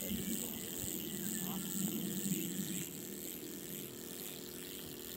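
Steady, high-pitched insect chorus droning over a low rumble.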